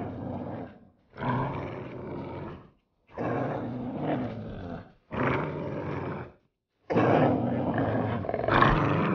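Dogs growling: a run of separate growls, each a second or two long with short silent gaps between them, then from about seven seconds in a louder, unbroken growling of the pack together.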